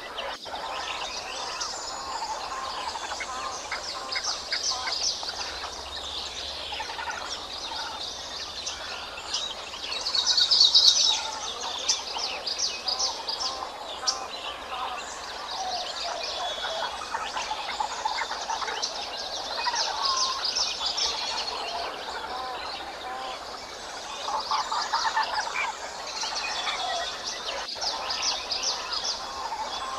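Many birds chirping and trilling at once, a dense mixed chorus of short high notes over lower calls, with a loud burst of rapid high chirps about ten seconds in.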